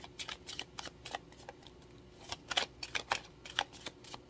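A deck of tarot cards being shuffled by hand: irregular light clicks and flicks of the cards, coming thicker in the second half.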